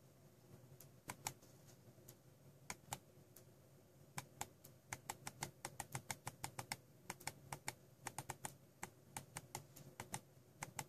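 Maxtill Tron G60 gaming mouse buttons clicking: a few scattered clicks at first, then quick runs of clicks, several a second, from about four seconds in until near the end.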